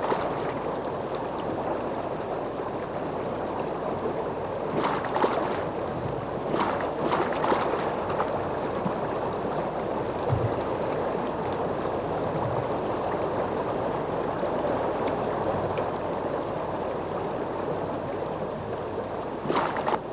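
Steady rush of a shallow river running over a stony riffle, with a few brief louder noises now and then.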